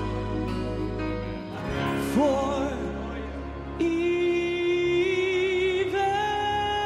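Male gospel vocal quartet singing long held notes with vibrato: a voice slides up about two seconds in, and a louder sustained chord comes in about four seconds in.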